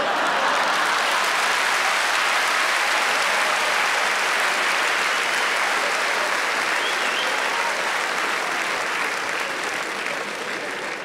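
A large seated audience applauding: the clapping swells up abruptly at the start, holds steady, and tapers off near the end.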